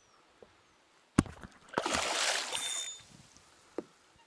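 Fishing by the water: a sharp knock about a second in, then about a second of splashing, and a small tick near the end.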